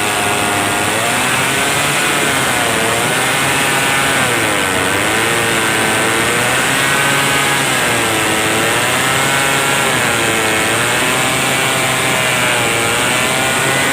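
Stihl 070 two-stroke chainsaw running hard, its engine pitch repeatedly dipping and recovering as the load comes and goes, typical of the chain biting into wood.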